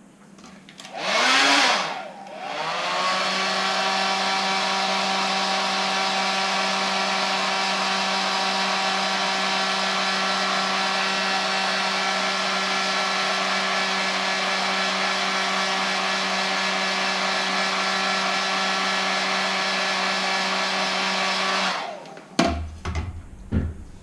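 Heat gun switched on with a short burst, then running steadily with a fan hum for about twenty seconds while heating vinyl wrap, then switched off. A few handling knocks follow near the end.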